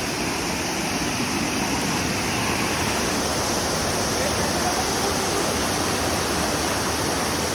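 Waterfall rushing: a loud, steady sound of falling water.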